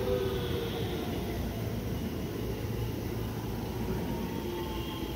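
JR West electric multiple-unit train running past a station platform. Steady wheel-on-rail rumble with a faint motor whine.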